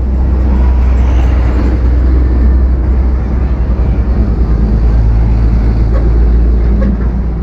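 A large tour bus's diesel engine running close by with a loud, steady low rumble, with no horn sounded.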